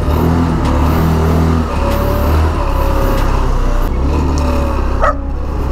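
Motorstar Easyride 150N scooter engine running as it is ridden, a steady hum whose pitch shifts about two seconds in and again near four seconds. The spark plug has just been cleaned of the fouling that made it hard to start.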